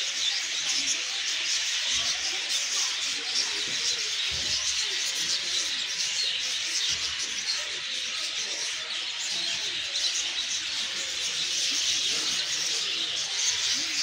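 Dense, steady chorus of many small birds chirping and twittering, a busy high-pitched fizz of overlapping chirps with no single call standing out.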